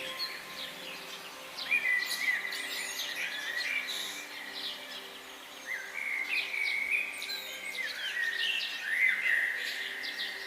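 Several birds chirping and singing, with many short overlapping calls and trills throughout, over a faint steady hum.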